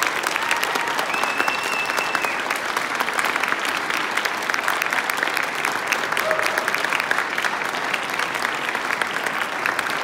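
Audience applauding steadily, with a few voices calling out over the clapping.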